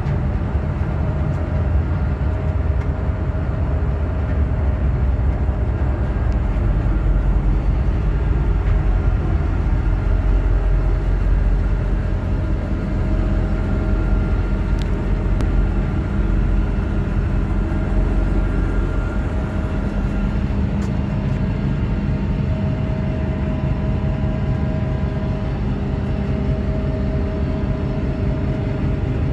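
Container ship's engine-room machinery running: a loud, steady deep rumble with a few steady hums over it.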